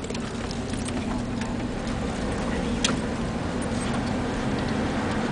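Steady engine and road hum inside a moving car's cabin, with scattered small clicks and one sharper click about three seconds in.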